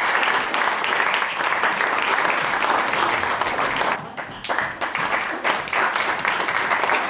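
Audience applauding, the dense applause thinning about four seconds in to scattered individual claps.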